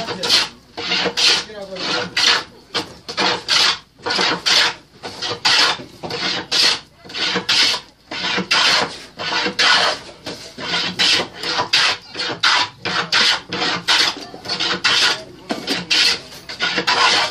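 Hand plane shaving a wooden board in quick repeated strokes, about two a second, each stroke a short rasping hiss.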